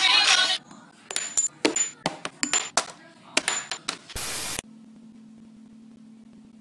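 Music cuts off about half a second in, followed by a run of sharp clicks and crackles from a packet of instant ramen being handled on a wooden table. A brief burst of hiss near the end gives way to a faint steady hum.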